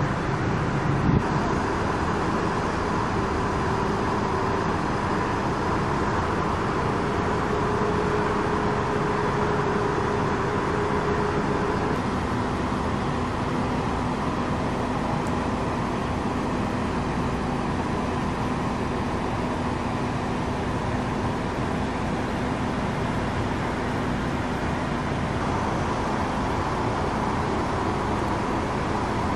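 Steady car driving noise: an even rush of road noise with a faint engine hum, its tone shifting slightly about twelve seconds in and again near the end.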